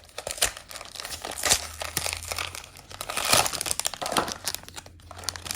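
Blind-box packaging crinkling and rustling as it is handled and torn open, in irregular crackles.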